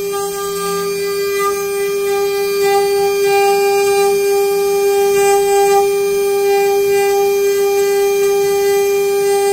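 CNC wood router spindle running with a steady, high whine while its bit carves a wooden blank turning on the rotary axis.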